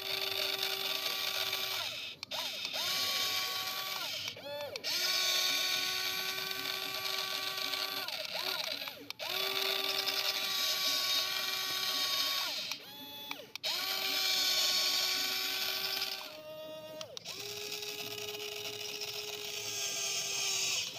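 Small electric gear motors of a toy remote-control excavator whining as its boom and bucket move, with a gritty gear rattle on top. The motor runs in bursts of two to four seconds, about six times, each starting and stopping with a short swoop in pitch.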